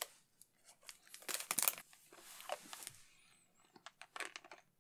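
Mouth sounds of a hard yuzu sake candy being sucked and moved around the mouth: irregular wet clicks and crackles as it knocks against the teeth, loudest about a second and a half in.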